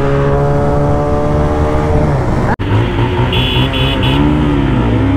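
Single-cylinder Bajaj Pulsar motorcycle engine at high revs in a full-throttle drag run, its pitch climbing slowly, then falling away about two seconds in. The sound drops out for a moment about halfway, then the revs waver up and down, with three short electronic beeps just after.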